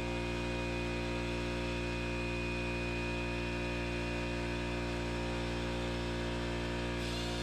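Air compressor running with a steady, even hum while the pneumatic die grinder is off the work. About seven seconds in, the die grinder's air hiss starts up again.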